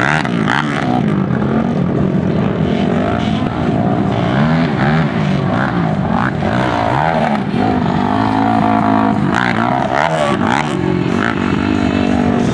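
Sport quad (ATV) engines revving hard on a dirt track, the pitch rising and falling again and again as the riders open and close the throttle through turns and jumps.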